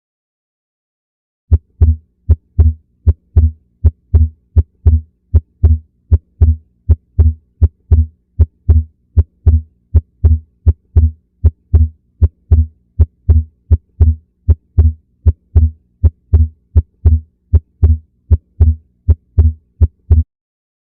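Recorded human heartbeat: regular low thumps, about two a second, starting about a second and a half in and stopping just before the end, with a faint steady hum behind.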